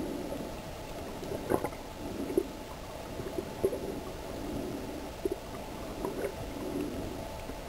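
Underwater sound picked up by a camera just below the water's surface: muffled gurgling and sloshing of water in repeated swells, with a few scattered sharp clicks.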